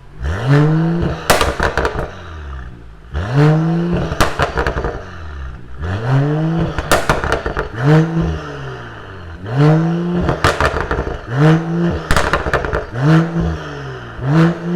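Mercedes-AMG CLS 53's turbocharged inline-six through an aftermarket T1 valved exhaust, revved again and again in short blips, each rise in pitch falling back with a burst of crackles and pops as the revs drop.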